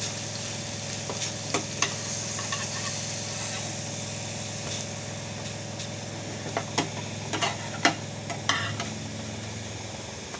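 Butter sizzling steadily in a frying pan under toasting pav buns. A metal spatula scrapes and taps against the pan several times as the buns are pressed and turned, with the taps coming thickest in the second half.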